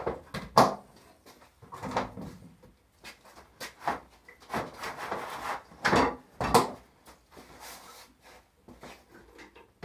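Clear plastic fodder trays and their lids being handled on a wooden shelving rack: irregular knocks, scrapes and clatter of plastic sliding against wood, loudest about half a second in and again about six and a half seconds in.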